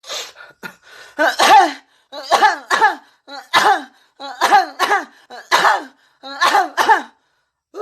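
Exaggerated, theatrical coughing: six voiced double coughs ('uh-huk'), each falling in pitch, about one a second.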